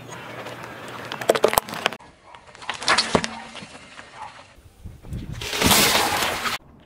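Car tyres crushing objects in quick succession: plastic marker pens cracking with a few sharp snaps about a second in, toothpaste tubes squashed with cracks and pops around three seconds, then a watermelon crushed under a tyre near the end, the loudest part, a long crunching noise.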